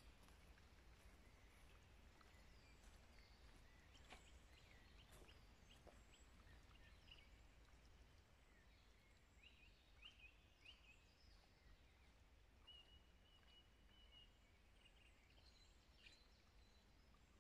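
Near silence: faint forest ambience with scattered high bird chirps and one short held whistled note about two-thirds of the way through.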